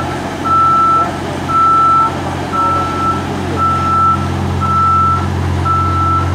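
JLG boom lift's warning beeper sounding a steady single-tone beep about once a second, about seven beeps, over the lift's engine running steadily. The beeper signals that the machine is moving.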